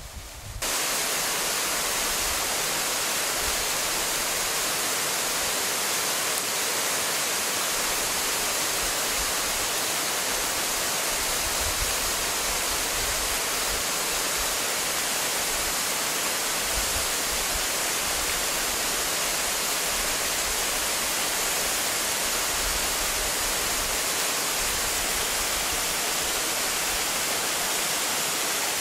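Waterfall pouring into a rock pool: a steady, even rush of falling water that starts suddenly under a second in and holds level throughout.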